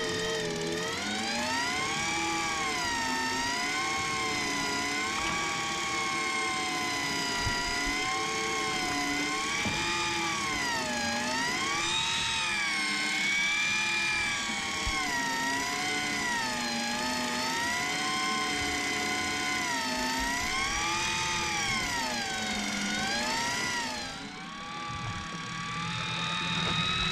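Electric deep-drop fishing reel winding in line under load, its motor whine rising and falling in pitch every second or two. About three seconds before the end it drops in level and settles to a steadier, higher whine.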